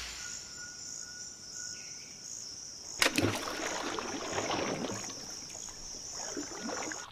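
A rubber tree nut drops into water about three seconds in, with a sharp splash followed by sloshing and dripping. Insects trill steadily throughout.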